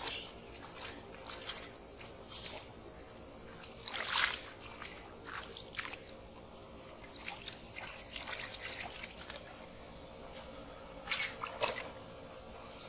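Splashing and sloshing in shallow muddy water as hands grab at carp, in irregular bursts, the loudest about four seconds in and another cluster near the end.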